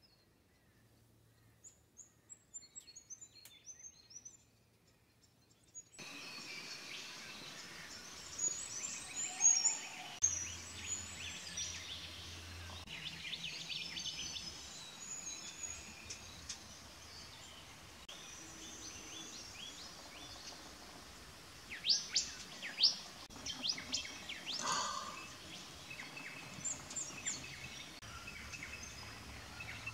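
Many wild birds calling and chirping: short high chirps and whistles, with a cluster of loud, sharp calls about two-thirds of the way through. The first few seconds are nearly quiet apart from faint chirps.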